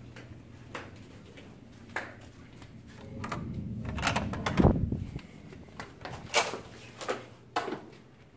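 Clicks and knocks from a hotel room door being worked at its handle and latch, with one heavier thump about halfway through.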